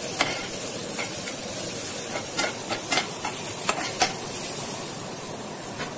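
Chopped onion, green chilli and tomato sizzling in oil in a non-stick pan while a slotted spatula stirs them, with irregular clicks and scrapes of the spatula against the pan. This is the onion-tomato masala being sautéed with freshly added ground spices.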